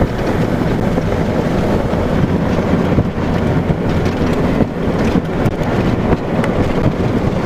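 Loud, gusting wind rumbling on the microphone in the strong winds near a tornado, over a low, steady vehicle hum.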